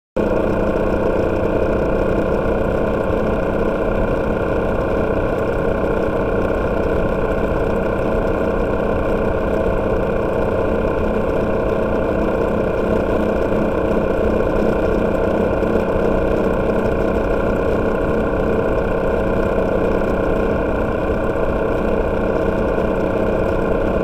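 Freshly overhauled motorcycle engine running under way, heard on board the moving bike, holding a steady pitch with no revving or gear changes.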